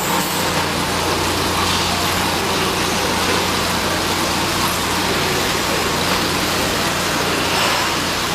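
XK7124 CNC milling machine running: a steady, even mechanical noise with a constant low hum underneath.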